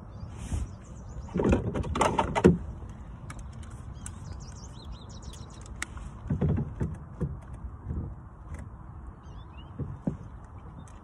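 Rustling, knocking handling noises close to the microphone, loudest between about one and a half and two and a half seconds in and again around six to eight seconds, with small birds chirping faintly.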